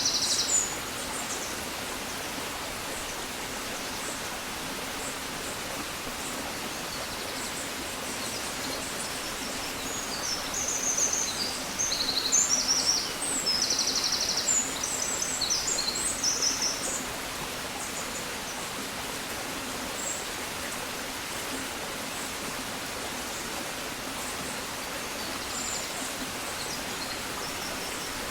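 Songbirds at dawn: a short burst of high chirping at the start, then a longer run of rapid chirps and trills from about ten seconds in, lasting several seconds, over a steady outdoor hiss.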